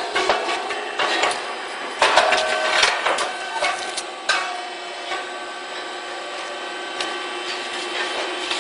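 Puffed-cake popping machine running: irregular mechanical knocks and clatter over a steady machine hum, with louder knocks about two seconds in and a little after four seconds.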